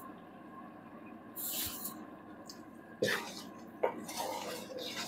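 Wooden spatula stirring a thick jujube pickle in a stainless steel pan: a sharp scrape and knock against the pan about three seconds in, then a click and more scraping. A short hiss comes about one and a half seconds in, over a faint steady background.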